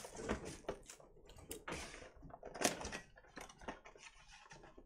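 Cardboard trading-card box being handled and slid on a table: a string of scrapes, taps and light knocks, the loudest about two and a half seconds in.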